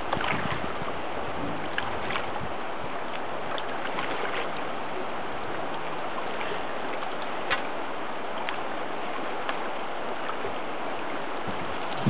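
Steady rush of river current, with a few small clicks scattered through it.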